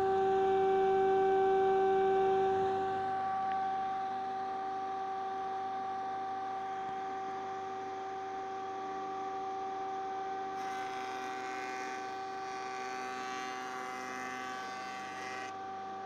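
Belmash SDMR-2500MAX combination woodworking machine running, a steady electric motor hum with a whine. A higher hiss joins in from about ten seconds in and stops about five seconds later.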